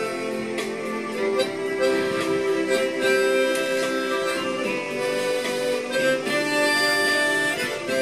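Harmonica playing a melody in long held notes over a backing accompaniment, as background music.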